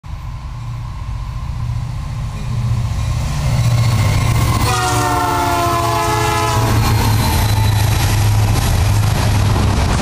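Diesel freight locomotives passing close by with a loud, steady rumble that builds over the first few seconds. About five seconds in, a multi-note locomotive horn sounds for about two seconds, its pitch sagging slightly as it goes by.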